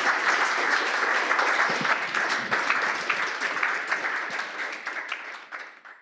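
Audience applauding, the clapping fading away over the last second or so.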